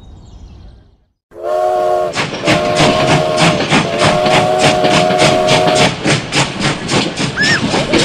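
Battery-powered toy steam train sounding its electronic whistle, a short toot and then a long one of about three seconds, over a rapid, even chuffing that runs on after the whistle stops.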